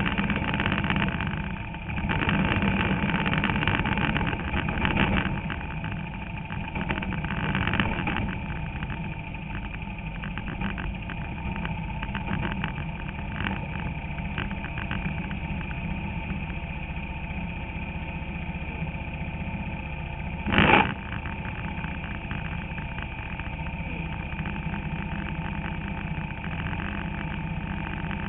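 Bandolero race car's Briggs & Stratton Vanguard V-twin engine running, heard from inside the cockpit, with the revs rising and falling over the first several seconds before settling to a steady drone. A brief loud burst stands out about twenty seconds in.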